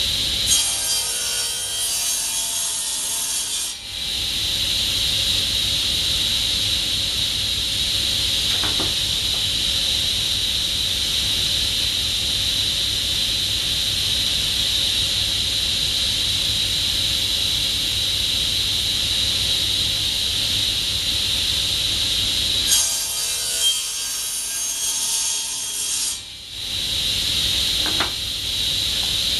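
A power saw running and cutting notches into a glued-up wooden block, steady throughout. Its sound turns rougher for the first few seconds and again for a few seconds near the end.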